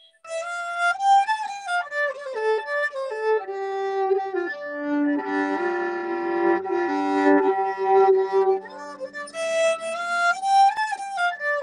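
A solo fiddle playing a slow Celtic air, one melody line stepping from note to note, with two notes sounding together for a few seconds in the middle.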